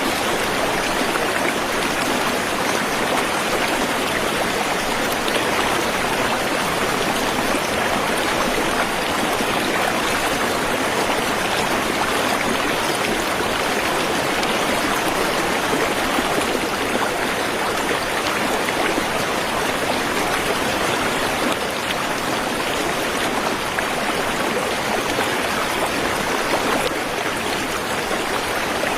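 Waterfall: water rushing steadily, an even, unbroken hiss.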